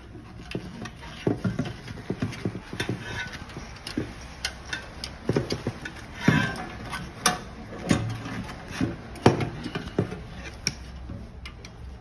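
Irregular clicks and knocks of small metal parts being handled and fitted into a sheet-metal burner housing while the ignition needle is being reinstalled, with a few louder knocks in the second half.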